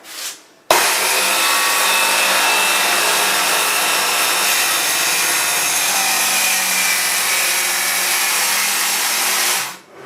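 Homemade panel saw's spinning blade cutting through a wood panel, a loud, steady sawing noise that starts abruptly about a second in and dies away near the end.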